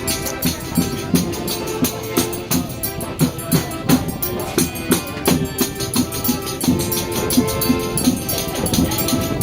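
Forró pé de serra band music: held accordion-like notes over a steady drum beat, with rattling percussion on top.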